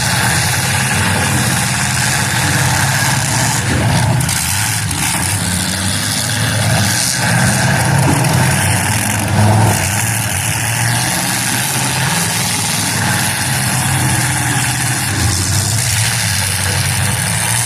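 Many demolition derby car engines running together and revving hard as the heat gets under way, with a few brief knocks of cars colliding.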